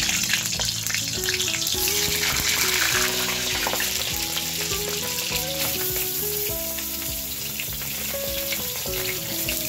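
Hot oil sizzling and crackling steadily as whole peeled potatoes are dropped into a kadhai one after another to fry.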